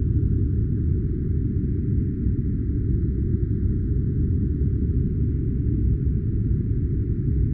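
Steady, deep, rumbling noise that does not change, like a white-noise sleep track with its upper frequencies cut away.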